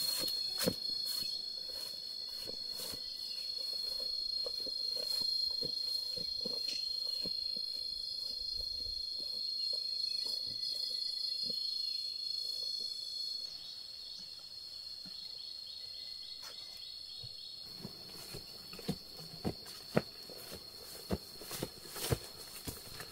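A steady, high-pitched insect drone holding one tone, with scattered sharp knocks in the last few seconds.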